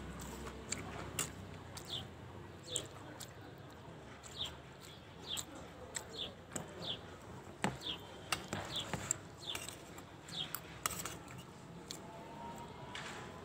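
Spoon clicking and scraping against a steel plate while eating, with a bird giving a short, high, falling chirp roughly once a second through most of the stretch.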